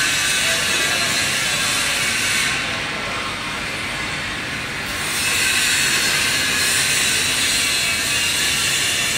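Steady mechanical hiss, the high part of it dropping away for a couple of seconds about two and a half seconds in before returning.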